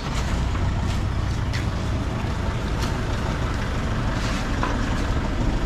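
Passenger van's engine idling, a steady low rumble.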